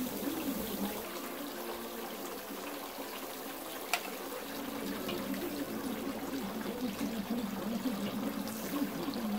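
Filet mignon steaks sizzling over hot charcoal on a Weber kettle grate during the final sear, a steady hiss, with one sharp click about four seconds in.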